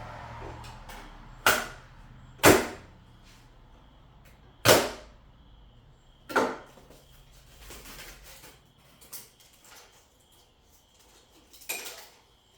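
Five sharp knocks, each with a brief ringing tail, spread unevenly through the stretch: things being handled and set down while unboxing. Faint rustling runs between them.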